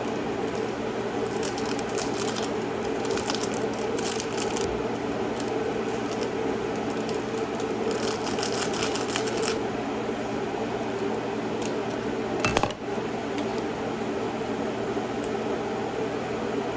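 A steady low hum, like an appliance running, with light clicks and taps of objects being handled and one sharper knock about three-quarters of the way through.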